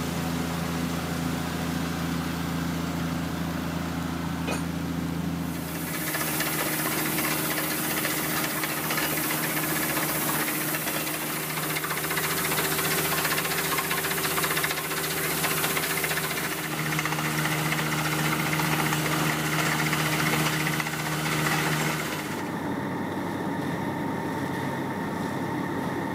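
Machinery of a water-well drilling rig running steadily with an engine hum. A loud hiss joins in about six seconds in and drops away a few seconds before the end.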